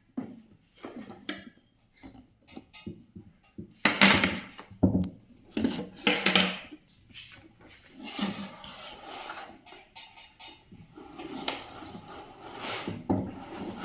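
Unpacking a boxed toy by hand: irregular knocks, clatter and rustling of cardboard and plastic packaging, loudest about four and six seconds in, with steadier rustling near the end.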